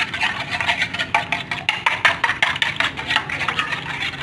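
Spoon beating egg in an enamel plate, clinking and scraping against the plate in quick, uneven strokes several times a second.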